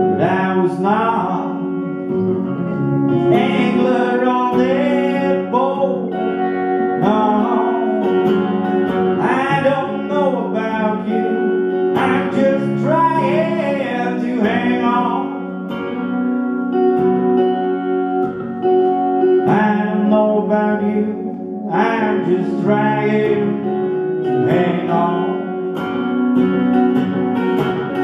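Two electric guitars playing together with a man singing over them: a live band performance.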